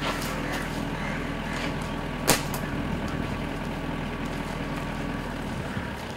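A motor vehicle's engine running steadily at idle, a low hum that stops shortly before the end, with one sharp crack about two seconds in.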